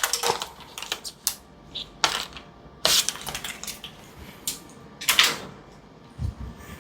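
Scattered light clicks, taps and short rustles of small medical items being handled while a filler syringe's cannula is swapped for a new one, with two brief louder rustling bursts about three and five seconds in.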